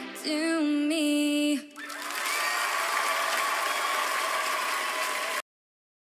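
A singer holds the last sung note of a pop song over the band, ending about a second and a half in. A studio audience then applauds, and the applause is cut off abruptly shortly before the end.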